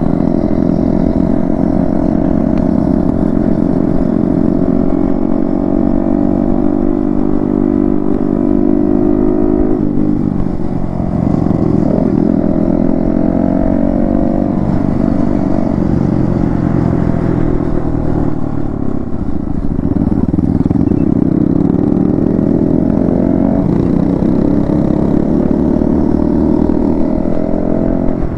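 Yamaha MT-15 V2's single-cylinder engine running through an aftermarket Akrapovic exhaust while riding. The engine note holds fairly steady, drops and climbs again about ten seconds in, and dips once more near twenty seconds.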